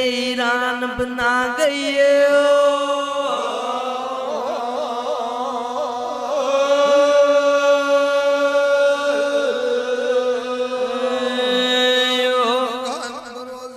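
Devotional chant: a voice singing long held, gliding notes over a steady drone, getting quieter near the end.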